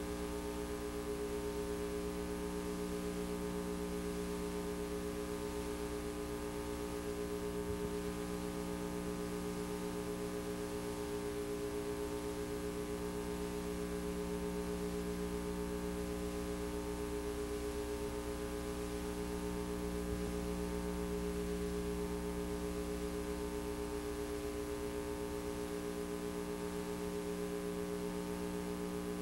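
Steady electrical hum and buzz with several fixed tones, unchanging throughout: noise from a VHS transfer that carries no recorded sound.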